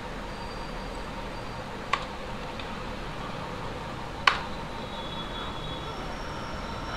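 Steady microphone hiss broken by two sharp clicks at a computer: one about two seconds in and a louder one a little after four seconds.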